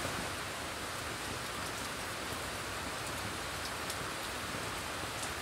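Steady outdoor hiss of weather in open scrub, an even noise with a few faint, light ticks scattered through it.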